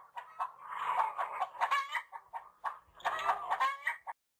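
Chicken clucking in a series of calls that cuts off suddenly about four seconds in.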